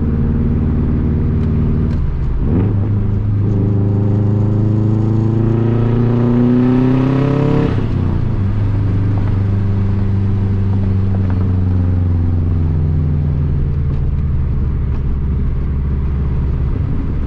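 2004 Subaru Impreza WRX STI's turbocharged flat-four running through a very loud full catback exhaust. It pulls under acceleration, pitch rising steadily for about four seconds, then drops sharply as the throttle closes. After that it eases off into a slowly falling cruise.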